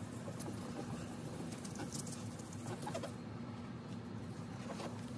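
Wet sandpaper rubbing over the clear plastic lens of a Code 3 XS8000 light bar in soft, scratchy strokes that stop about three seconds in. A steady low hum runs underneath.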